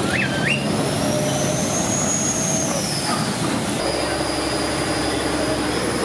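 Steady noise of a vehicle in motion, with a short squeal near the start and an abrupt change in the sound about four seconds in.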